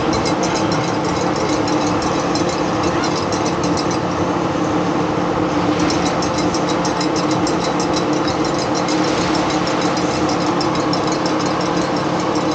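A steady mechanical hum like a motor or engine idling, with a fast, even high ticking over it that stops for a couple of seconds midway.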